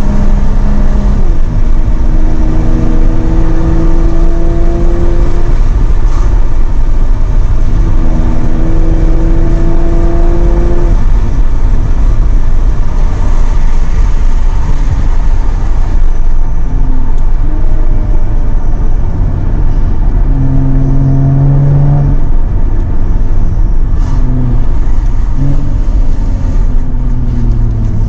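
Jaguar F-Type sports car engine pulling hard under acceleration, its pitch rising steadily for a few seconds and then dropping off at each gear change, twice in the first half and again later, over a loud low rumble of wind and road.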